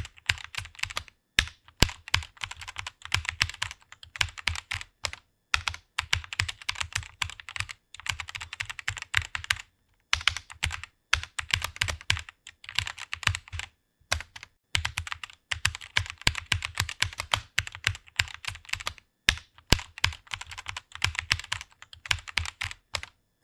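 Fast typing on a computer keyboard: rapid runs of keystrokes, broken by short pauses every few seconds.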